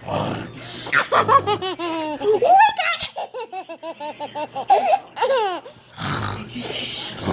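A young child laughing in a long run of fast, high-pitched giggles. Harsh rasping snores come just before the laughter and again after it ends.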